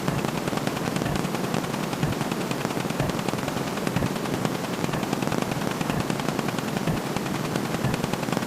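Counting sound effects fired off so fast that they run together into a continuous dense rattle of clicks.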